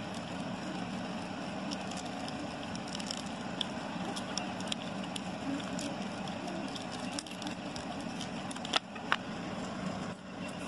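Thin printed cardboard of a small pop-up toy room crackling and clicking as it is folded and handled, over a steady background hiss. Two sharp taps close together near the end as the card is set down on a tile floor.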